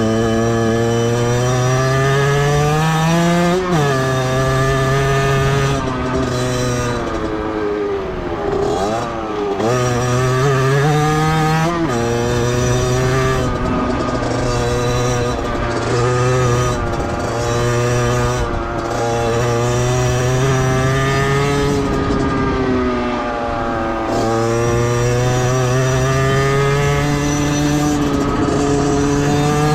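Beta 50cc two-stroke motorcycle engine under way. Its pitch climbs and then drops sharply several times as it shifts up through the gears, with a brief fall and recovery in revs about a third of the way through.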